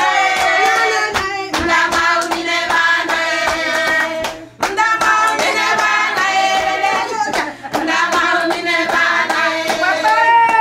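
Voices singing a melody together over steady rhythmic hand clapping, with a brief break about four and a half seconds in.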